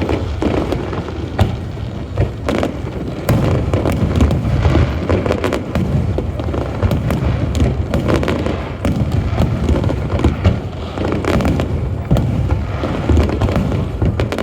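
Fireworks display: a continuous barrage of booming aerial shells and crackling bursts, with many sharp bangs over a dense low rumble.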